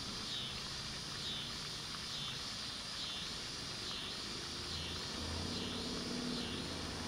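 Outdoor ambience of a high-pitched insect chorus, swelling and fading about once a second, with a low engine drone growing in from about five seconds in. Recorded through an Audio Technica BP4029 stereo shotgun microphone.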